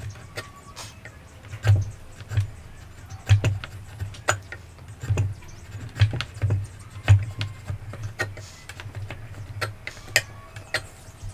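Wood chisel paring a wooden joint under hand pressure: irregular sharp cracks and clicks, about one or two a second, as the blade slices through the wood fibres, each with a dull knock.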